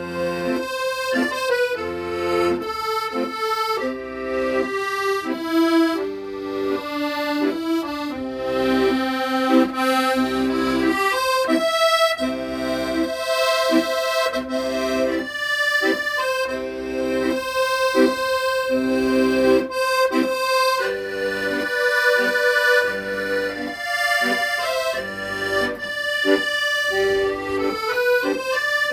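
Accordion playing a song melody over held chords in a steady rhythm.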